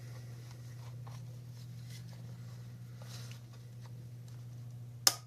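Faint scraping and handling of a plastic smart-plug housing being pried apart, over a steady low hum. One sharp plastic click comes about five seconds in.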